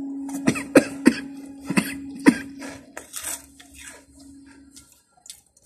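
A man coughing in about five short, sharp bursts over the first two and a half seconds, then quieter mouth and throat sounds, from the chilli heat of the spicy crackers he is eating.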